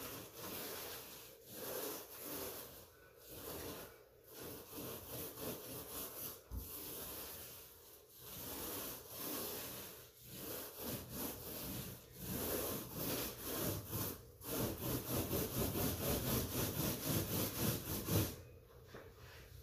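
Hand scraper scraping a patched drywall wall in repeated rubbing strokes, slow and uneven at first, then quicker, about three or four strokes a second, before stopping near the end.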